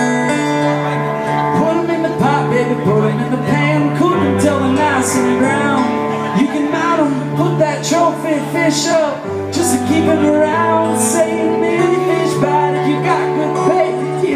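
A live blues band playing without sung words: acoustic guitar and keyboard chords over a steady bass line, with a wavering lead melody and regular cymbal-like strokes.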